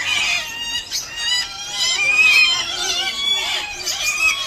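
Several aviary birds calling at once: shrill, squawking calls that overlap one another, the loudest about two seconds in.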